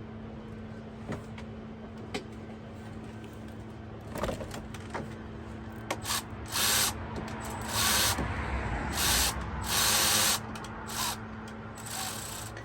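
Hand tools being worked on metal in a car's engine bay: a few light clicks, then several short, noisy bursts of scraping and ratcheting, each about half a second to a second long, over a steady low hum.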